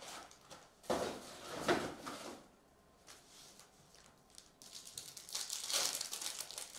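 Foil trading card pack being torn open and its wrapper crinkled by hand, in two spells of crackling noise.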